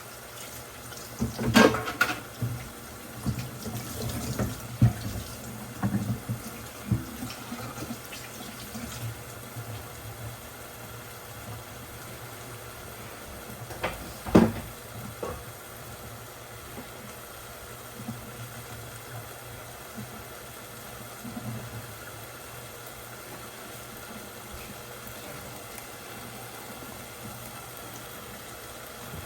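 Kitchen tap running into a sink, with several knocks in the first few seconds and one louder knock about halfway through.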